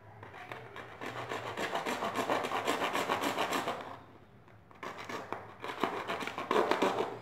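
Thin blade sawing back and forth into a PVC pipe, cutting a slot: a rapid rasping of many short strokes. It stops briefly about four seconds in, then starts again.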